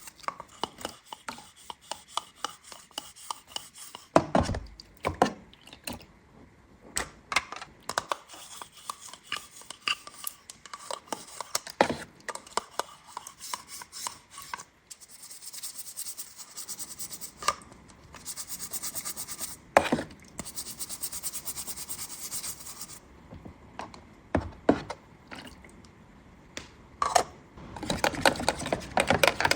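Hands handling and unpacking toy playset pieces and packaging: rubbing and scraping, broken by many scattered clicks and taps, busier near the end.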